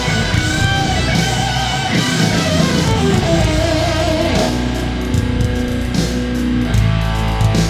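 Background music led by guitar, with a steady bass underneath.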